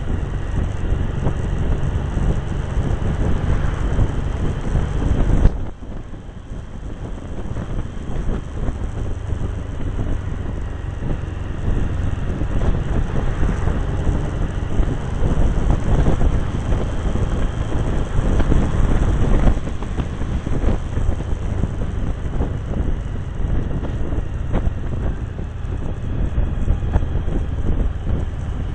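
Wind buffeting the microphone over the engine and road noise of a Cagiva Navigator V-twin motorcycle riding along. The noise drops suddenly about five and a half seconds in, then builds back up.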